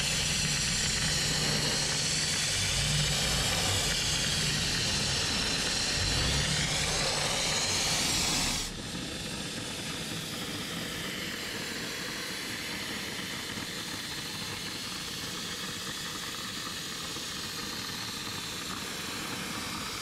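Dry Ice Energy blasting gun firing dry ice pellets on compressed air at engine-bay plastics: a loud hiss that wavers as the nozzle sweeps. It cuts off abruptly about nine seconds in, leaving a quieter steady hiss.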